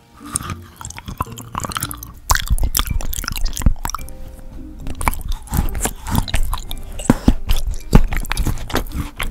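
Close-miked biting and crunching of a hard edible toothbrush-shaped treat, with sharp crunches coming thick and fast from about two seconds in, over soft background music.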